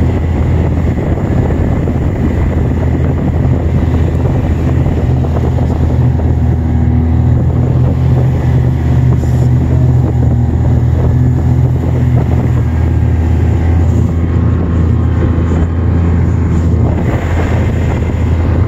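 Snowmobile engine running steadily under way, heard from the rider's seat, with wind buffeting the microphone.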